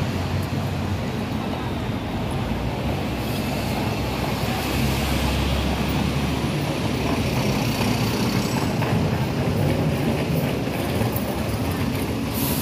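City street ambience: a steady low rumble of traffic, with passers-by.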